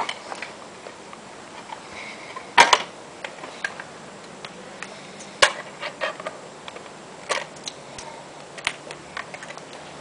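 Handling noise: scattered clicks and knocks, the loudest a double knock about two and a half seconds in and a sharp click about five and a half seconds in.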